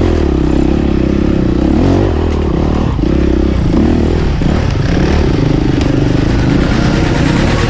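Enduro dirt bike engine running under load, its pitch rising and falling repeatedly as the throttle is worked, with some clatter from the bike over rough ground.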